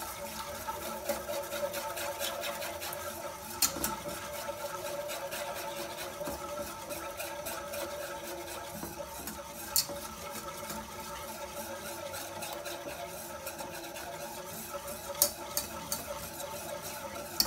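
Wire whisk stirring milk in an aluminium saucepan, mixing in sugar: a steady swishing, with the wires now and then clicking sharply against the side of the pan.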